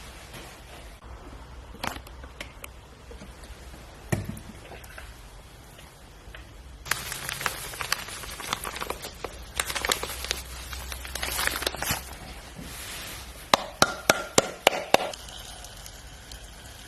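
Kitchen preparation sounds: scattered knocks, a few seconds of rustling and clatter, then a quick run of sharp taps against a bowl with a brief ringing tone, about a second and a half from two-thirds of the way in.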